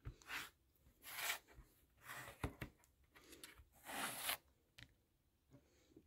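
A NOOK Tablet being handled, slid and turned over on a tabletop: a series of short, faint scraping and rubbing noises, with a sharp click about two and a half seconds in and another near the end.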